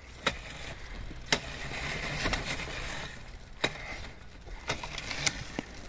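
Razor MX350 electric dirt bike's motor whirring as it rolls slowly over a dirt trail, swelling louder about two seconds in, with scattered sharp clicks and snaps.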